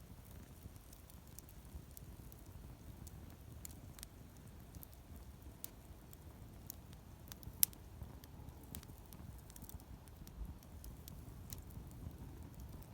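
Wood campfire crackling: scattered sharp pops and snaps over a low steady rumble of flame, with one louder pop a little past halfway.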